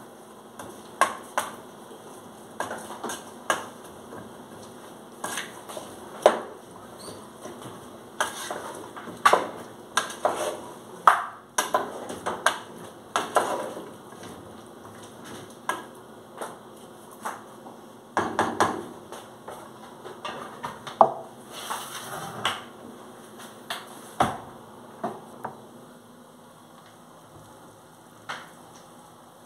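Wooden spoon stirring vegetable chunks in a metal pot, knocking and scraping against its sides in irregular clacks. The clacks come in quick runs midway and thin out near the end.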